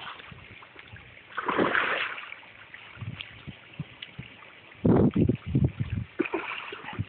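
Pond fish splashing and gurgling at the water's surface as they crowd in to feed, in irregular bursts: one about a second and a half in and a louder cluster around five to six seconds in.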